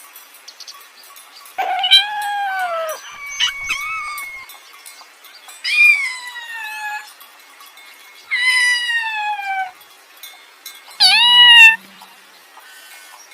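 A kitten mewing: four drawn-out, high meows, each falling in pitch, spaced a few seconds apart.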